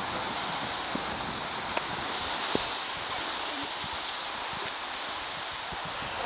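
Steady hiss of skis gliding over snow while being towed, with a few faint knocks.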